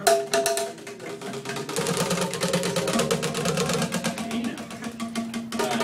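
Struck tuned instruments sounding several held notes that overlap, over a dense clatter of rapid taps.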